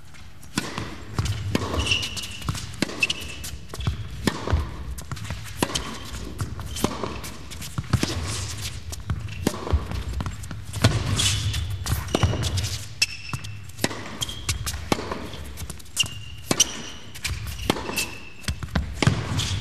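Tennis rally: the ball is struck by rackets and bounces on the court again and again, in sharp, irregularly spaced hits, with short high squeaks among them.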